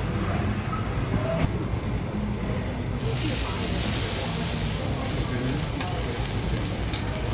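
Food sizzling on a teppanyaki iron griddle, a hiss that starts suddenly about three seconds in and holds steady, over a low murmur of voices.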